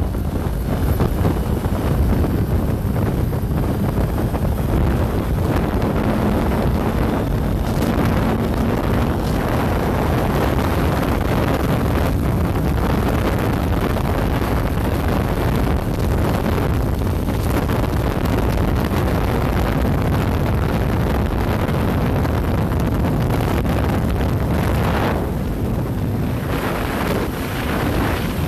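Wind rushing hard over the microphone of a motorcycle at highway speed, with the bike's engine and road noise running steadily underneath as a low hum.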